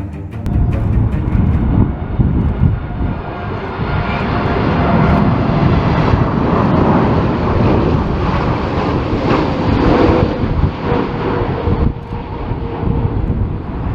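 Jet airliner engines passing close by, growing louder through the middle and easing off near the end, with steady engine tones over the noise. Strong crosswind gusts rumble on the microphone underneath.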